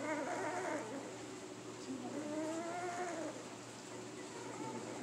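Pit bull puppy whining: a short whine at the start, then a longer wavering one about two seconds in.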